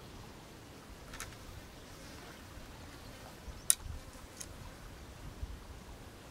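A few sharp clicks from a fishing rod and spinning reel being handled, the loudest about three and a half seconds in, with a couple of soft low thumps, over a faint steady background.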